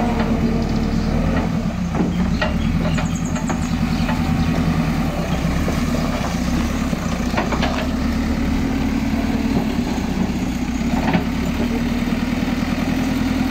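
Backhoe loader's diesel engine running steadily, with a few sharp cracks and knocks over it as the machine works.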